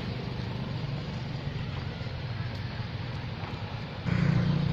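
A steady low engine hum over outdoor background noise. It suddenly gets louder about four seconds in.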